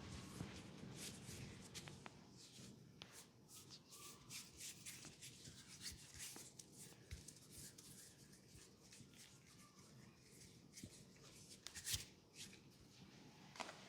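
Hands rubbing over skin and hair in massage strokes: faint, soft brushing sounds one after another, with a single sharper click near the end.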